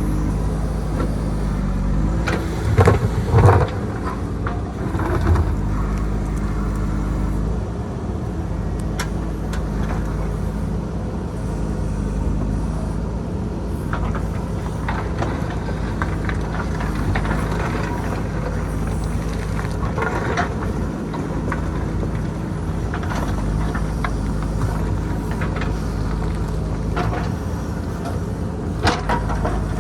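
A JCB backhoe loader's diesel engine runs steadily under work, with knocks and clatter of rock and stones. The clatter is loudest about three seconds in, comes again about five seconds in and about twenty seconds in, and comes once more near the end.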